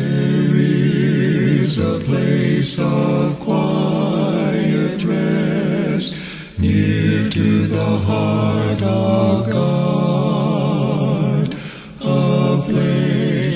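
Gospel quartet singing a cappella, several voices in harmony with no instruments. The phrases break off briefly about 2, 6.5 and 12 seconds in.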